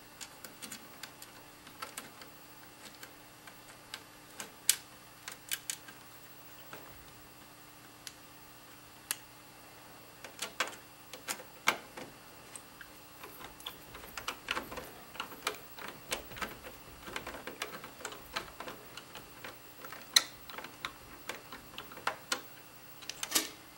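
Irregular small metal clicks and scrapes of a screwdriver driving the mounting screws of a 120 mm fan into the metal rear panel of a computer case. They are sparse at first and come much more often from about halfway through.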